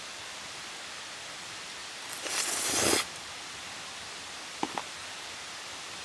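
Steady outdoor hiss, broken about two seconds in by a loud breathy rush that swells for about a second and stops abruptly, then two short sharp chirps about a second and a half later.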